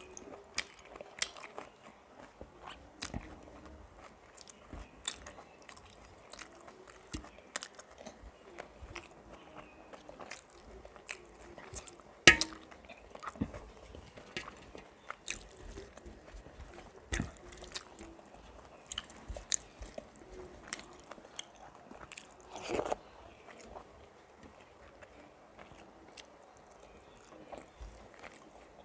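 Close-miked eating: chewing and crunching mouthfuls of rice and fried vegetables, with many short sharp mouth clicks. The sharpest crunch comes about 12 seconds in, and a longer, louder one comes about 23 seconds in.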